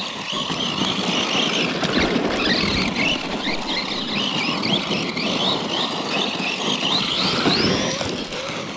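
Electric Traxxas RC monster truck whining, the pitch rising and falling over and over as the throttle is worked hard, with the tyres scrabbling and sliding on loose gravel.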